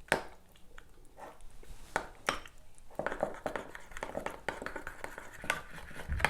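A kitchen utensil tapping and scraping against a mixing bowl, as ingredients are mixed: irregular clinks and knocks that come thicker in the second half.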